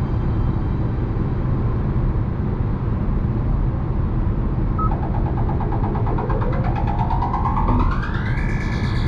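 Background electronic music: a low droning rumble with a synth sweep that rises steadily from about halfway through and levels off into a held high tone near the end.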